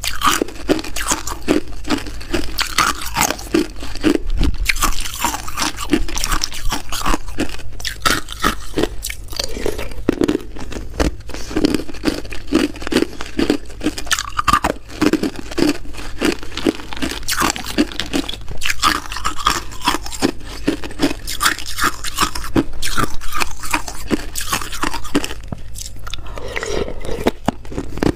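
Hard clear ice being bitten and crunched between the teeth close to a small microphone, with dense, rapid crackling chews and a brief lull near the end.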